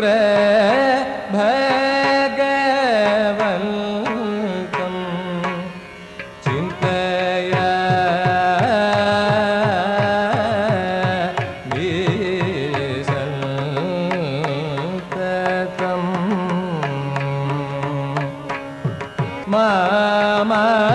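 Carnatic-style devotional music: a Sanskrit hymn to Shukra (Venus) sung with sliding, ornamented notes over melodic accompaniment, with a stretch of drum strokes in the middle.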